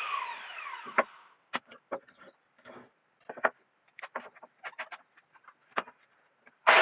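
A power tool spins down with a falling whine, then a series of scattered light knocks and clicks. Near the end, a loud tool noise starts up abruptly again.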